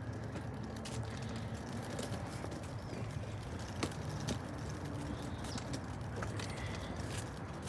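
Footsteps of someone walking on pavement, with scattered sharp scuffs and taps, over a steady low rumble of traffic.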